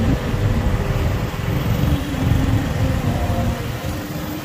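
Motorbike engine running at low speed in slow-moving traffic, with steady road and traffic rumble.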